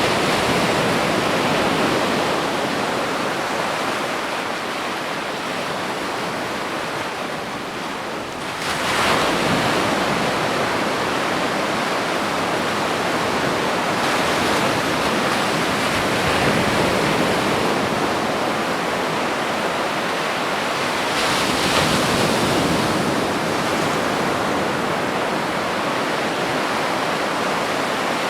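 Ocean waves breaking on a beach: a continuous wash of surf, with a wave crashing louder about a third of the way in and again about three-quarters of the way through.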